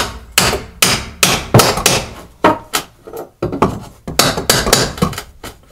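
A hammer striking a flat steel pry bar, driving it in behind a wooden wall cross brace to pry the brace off the studs: about a dozen sharp metal-on-metal blows at two to three a second, with a short pause about halfway.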